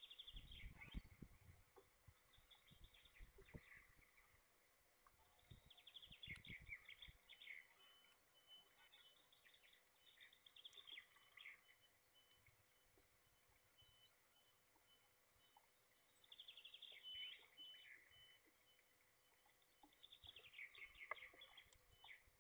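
Faint songbirds singing short phrases of quick descending notes that recur every few seconds, with a few low thumps near the start and about six seconds in.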